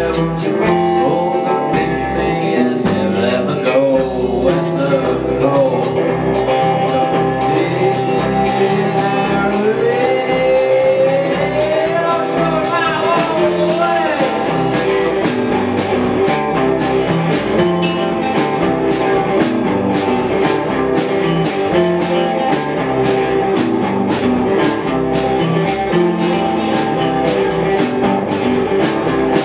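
A rock band playing a psychedelic jam live: electric guitars and drum kit. About ten seconds in, a lead line slides up in pitch and wavers, and in the second half the cymbals keep a steady beat of about two strokes a second.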